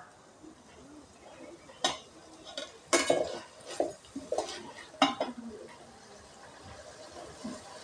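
Large metal spoon stirring chopped tomatoes, onions and green chillies in a metal pot, with a series of sharp clinks and scrapes against the pot from about two to five seconds in, then quieter.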